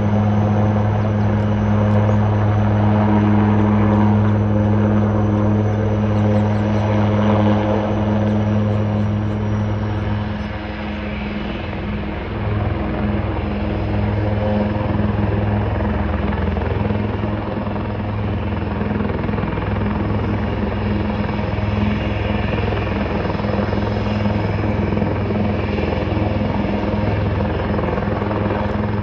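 Military helicopter running on the ground with its rotors turning: a steady, loud low rotor drone under a thin high turbine whine. About ten seconds in the whine drops in pitch and the sound dips briefly, then carries on steadily.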